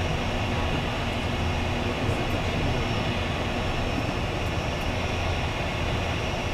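Embraer Phenom 100's Pratt & Whitney PW617F turbofan engines idling steadily, heard from inside the cockpit.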